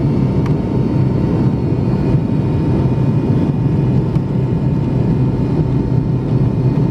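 Cabin noise of an MD-80 taxiing: the steady low drone of its rear-mounted Pratt & Whitney JT8D engines at low power, with a thin steady whine over it.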